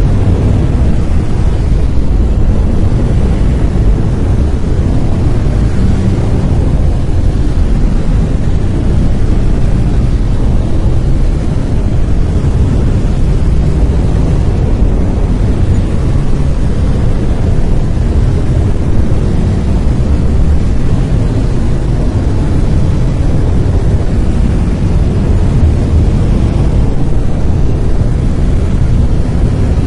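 Steady brown noise: a deep, even rumbling hiss with its weight in the low end, unchanging throughout.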